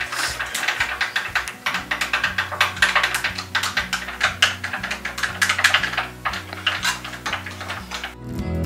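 A thin stirring stick clicking rapidly and irregularly against the sides of a glass measuring cup as dry yeast is stirred into warm water, the catalyst mix for elephant toothpaste. The clicking stops shortly before the end, when music comes in.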